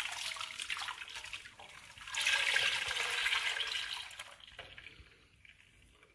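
Liquid egg-and-milk batter pouring from a blender jug into a cooking pot: a splashing stream, loudest about two to three seconds in, that thins and dies away toward the end as the jug empties.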